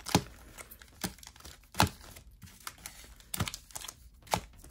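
Foil Pokémon booster pack wrappers crinkling as the packs are handled and shuffled in the hands, with about five short sharp crackles spread through.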